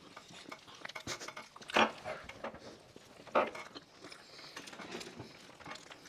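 People eating cake face-first without hands: wet smacking, munching and mouth noises, with two short louder mouth sounds about two and three and a half seconds in.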